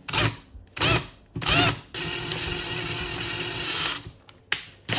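Power drill with a 6 mm twist bit drilling through a steel sweeper handle rod to open a hole to its final size. The drill is pulsed in three short bursts, then runs steadily for about two seconds before stopping.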